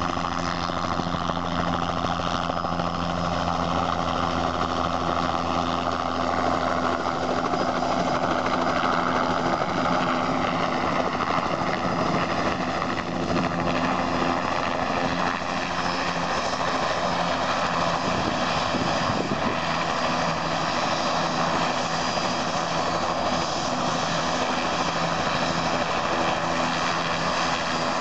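Bell 206 JetRanger helicopter hovering down to land and then running on the ground with its main rotor turning. There is a steady turbine whine under a continuous rotor drone.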